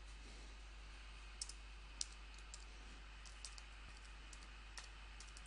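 Faint, scattered keystrokes on a computer keyboard, about ten clicks starting about a second and a half in.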